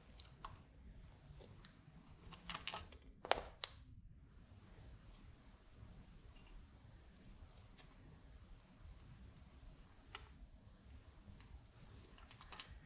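Faint, scattered clicks of small wire-leaded resistors being pushed into the through-holes of a circuit board and handled against it, with a few sharper clicks a couple of seconds in and again near the end.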